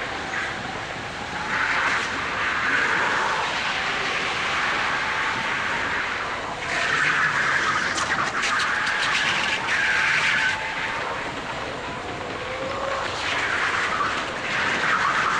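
Go-kart running at race pace, heard from a camera mounted on the kart: a faint engine tone that rises and falls under loud rushing noise, swelling louder three times as the kart speeds up, with a short run of sharp rattling clicks in the middle.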